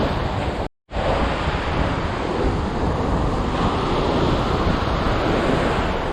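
Ocean surf washing onto the beach, with wind buffeting the microphone. The sound drops out completely for a moment just under a second in.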